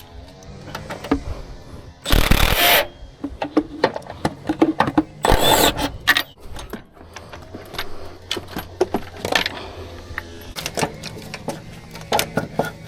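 Metal hand tools and bolts clinking and clicking against each other as the mechanic works. Two short, loud, hissing bursts come about two and five seconds in.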